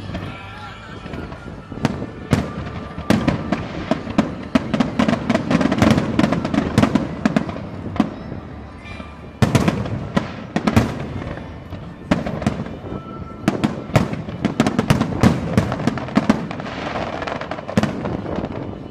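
Fireworks display: aerial shells bursting in rapid, overlapping bangs with crackling between them. There is a brief lull about eight seconds in, broken by a sharp bang.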